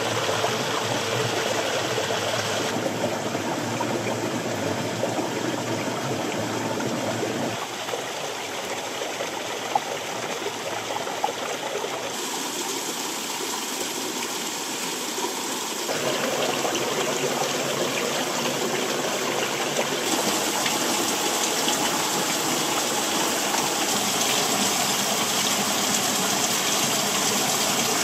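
Shallow mountain stream with barely any flow, trickling and splashing over rocks, with thin strands of a small waterfall spattering onto stone. The steady rush changes abruptly in loudness and pitch several times.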